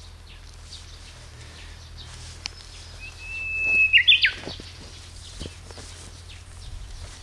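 A songbird singing once: a held whistle swelling over about a second, ending in a quick, loud flourish of notes. Fainter bird chirps sound around it.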